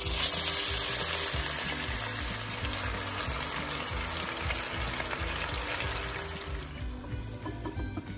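Water poured into a hot oiled pan of frying dumplings: a sudden loud hiss and sizzle that slowly dies down to a bubbling simmer over several seconds.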